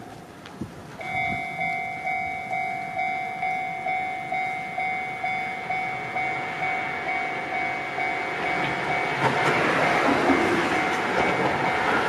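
Japanese level-crossing warning bell starts about a second in, ringing a steady clanging chime about twice a second. From about nine seconds in, the rising noise of an approaching train grows under the bell.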